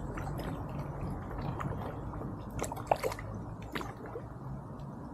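Kayak paddle working the water: small splashes and water dripping off the blades, with a few sharp drips or knocks a little past halfway.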